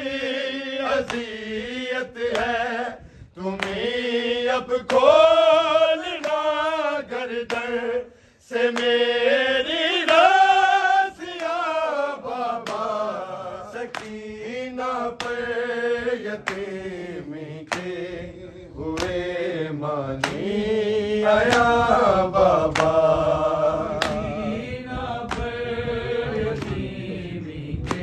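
A man chanting an Urdu noha, a mourning lament, in long melodic phrases, with other voices joining lower in the second half. A steady beat of sharp slaps, a little more than one a second, runs under the chant: matam, the mourners' chest-beating.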